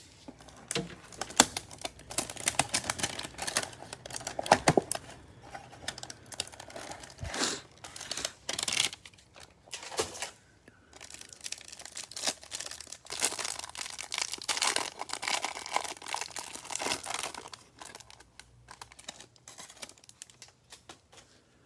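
Plastic shrink wrap on a trading-card box being torn and crinkled as the box is opened and the card stack pulled out, in irregular bursts of crackling and tearing that thin out near the end.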